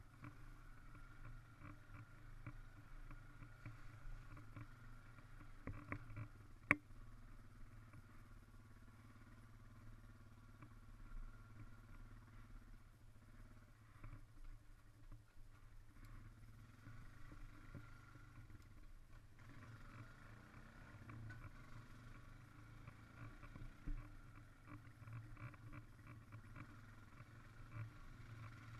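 ATV engine running faintly and steadily as the machine rides over rough ground, with scattered bumps and knocks and one sharp knock about seven seconds in.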